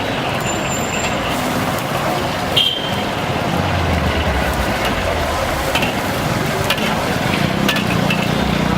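Busy street traffic: a steady wash of road noise, with a brief high chirp about a third of the way in and a vehicle engine's low rumble coming up about four seconds in.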